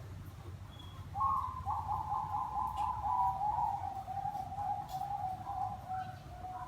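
Bangkok-strain zebra dove (perkutut) singing in full voice: one long, rapid, rolling coo that starts about a second in and slowly falls in pitch over about five seconds. A steady low hum runs underneath.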